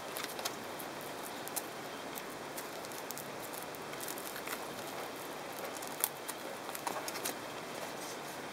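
Handling noise from a plush toy being turned over and worked at by hand: scattered small clicks and rustles, one louder click about six seconds in, over a steady hiss. The toy's own sound does not play.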